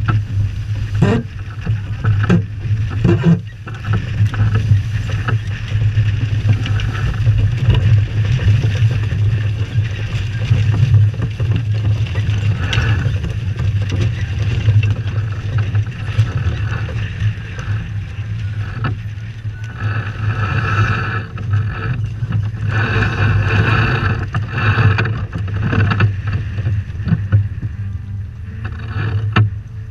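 Sailboat under sail in strong wind: wind buffets the microphone with a steady low rumble, and water rushes and splashes along the hull. The rush of water swells about twenty seconds in and again a few seconds later.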